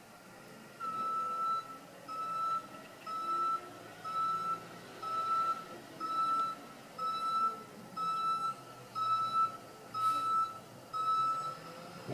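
Garbage truck's back-up alarm beeping steadily as it reverses, about one beep a second, starting about a second in, with the truck's engine running underneath.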